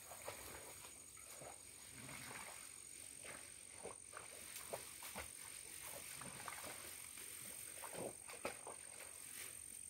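Faint outdoor ambience: scattered soft clicks and rustles over a steady high-pitched whine.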